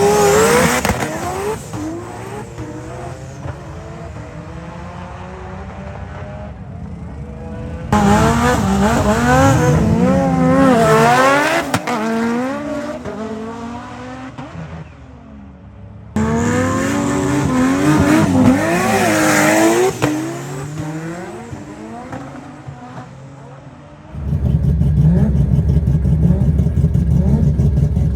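Cars' engines revving hard at full throttle, their pitch climbing and dropping again and again, heard in three clips that each begin abruptly. In the last few seconds it cuts to a deep, steady engine rumble.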